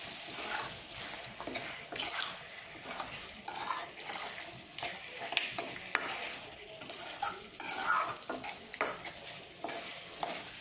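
Beef pieces in thick masala stirred and scraped around a metal kadai with a metal spoon, in irregular strokes over a steady sizzle from frying. The pressure-cooked beef is being dry-roasted to cook off the last of its liquid.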